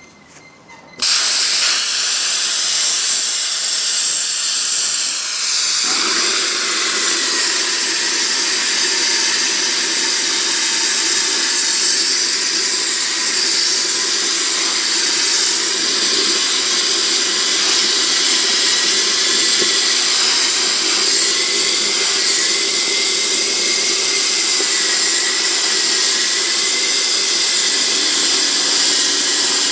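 Hypertherm Powermax 1000 plasma cutter cutting a lathe bed: a loud, steady hiss that starts suddenly about a second in, taking on a deeper, fuller tone about six seconds in and running on evenly.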